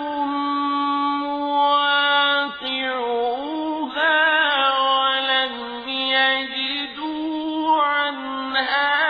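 Quran recitation in the melodic mujawwad style by a male reciter with a high voice: long held notes with wavering ornamental turns, briefly breaking off about two and a half seconds in.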